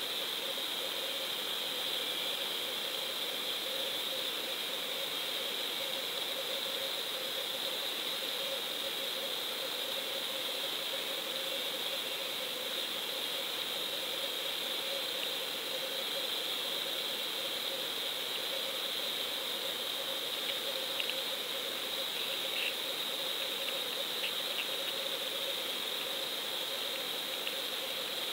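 Steady underwater hiss with a high, even hum, recorded by a GoPro lying underwater in its sealed housing. A few faint clicks come in over the last several seconds.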